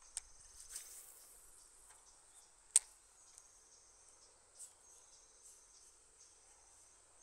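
Insects chirping in high-pitched, repeated trills, with a single sharp click about three seconds in and a fainter click at the start.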